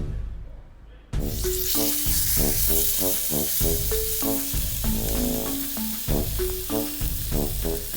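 Boar-pig pork steak frying over a wood fire, a steady dense sizzle that starts about a second in. Background music of short melodic notes plays over it.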